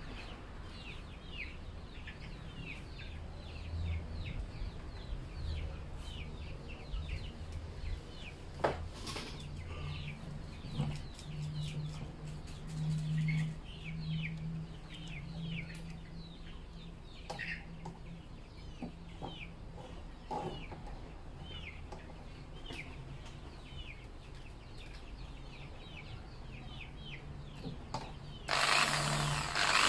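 Chickens and small birds chirping in the background, with a low hum and a few sharp clicks of handling. Near the end an electric drill starts up loudly, its motor rising in pitch as it spins up to drill the plastic feed-outlet flap on the barrel.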